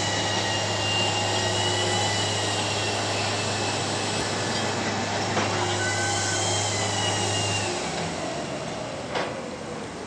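Crawler crane working a lifted shipping container: a steady low mechanical hum with wavering high-pitched squeals over it. The hum drops away about three-quarters of the way through, and there is a single sharp click near the end.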